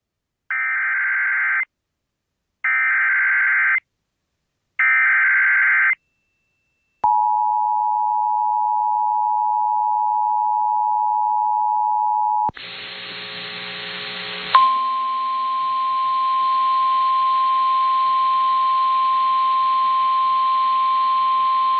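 Emergency Alert System broadcast tones: three screeching SAME data bursts of about a second each, a second apart, then the two-tone EAS attention signal held for about five seconds. After a couple of seconds of buzzy static, the single steady NOAA Weather Radio alert tone sounds over a faint hiss, announcing the next warning.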